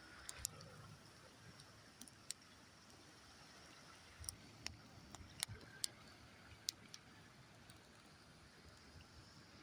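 Campfire crackling: irregular sharp pops and snaps of burning wood, about ten in all, over a faint steady hiss of flowing river water.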